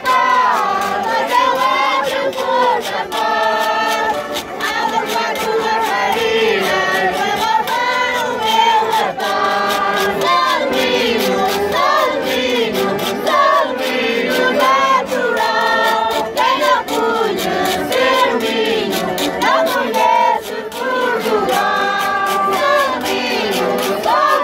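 A boy and a man singing a Portuguese folk song in turn, to a diatonic button accordion (concertina), with a steady high ticking from a split-cane rattle keeping the beat; other voices join in.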